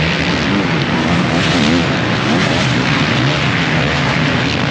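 Several motocross bike engines revving together as they race, each one's pitch rising and falling as the riders open and close the throttle.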